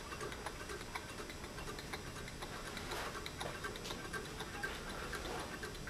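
Home-built low-temperature-difference Stirling engine running, its piston and displacer linkage ticking faintly and steadily.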